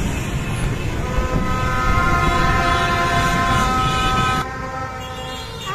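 Several horns held together in one long chord for about three seconds, over a steady rumble of motorbike and truck engines. The sound drops abruptly about four seconds in.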